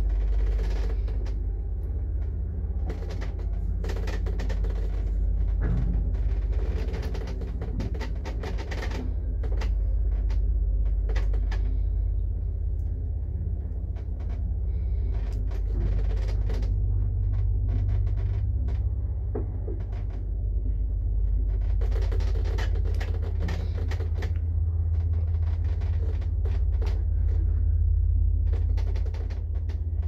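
A 1969 passenger lift in motion: a steady low rumble from the car and its machinery, with scattered clicks and knocks.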